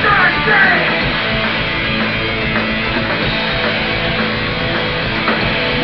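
Hardcore punk band playing live: distorted electric guitars and bass over drums, with shouted vocals in about the first second, then instruments alone.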